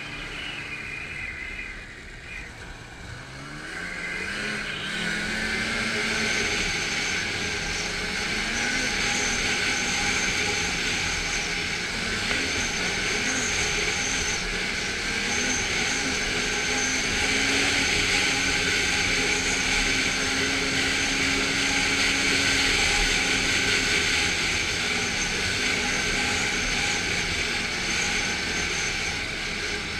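Snowmobile engine heard from the rider's seat: it eases off about two seconds in, then revs up with a rising pitch and settles into steady cruising with small rises and falls in pitch, over a steady rushing noise.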